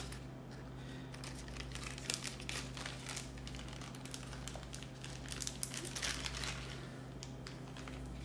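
Plastic packaging and paper crinkling and rustling as they are handled, in scattered irregular crackles, over a steady low hum.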